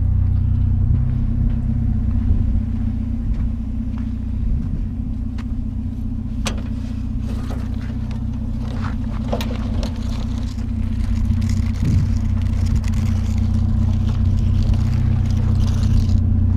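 A vehicle engine running steadily, a low droning rumble, with a few light knocks or rattles about six and nine seconds in.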